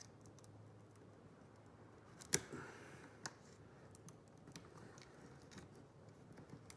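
Faint handling noises from work on a laptop's display lid: light clicks and rubbing on plastic, with one sharp click a little over two seconds in and a few softer ticks after it.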